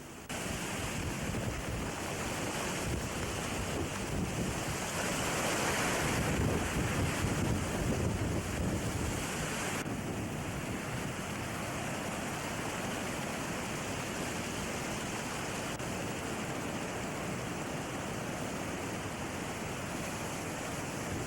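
Violent storm surf breaking on a beach in hurricane winds, with wind buffeting the camcorder microphone. The rush swells louder for several seconds, then settles to a steady roar.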